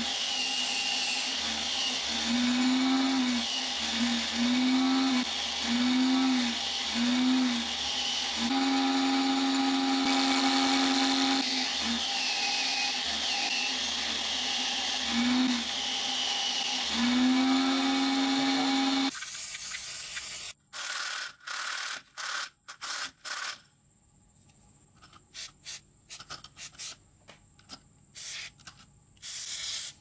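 Angle grinder clamped in a vise running a wire wheel brush, with small screws held in pliers pressed against the wheel to clean off rust; the motor's steady hum sags in pitch again and again as each part is pushed onto the wheel. About two-thirds of the way through the grinder sound stops and a string of short, separate clicks and knocks follows.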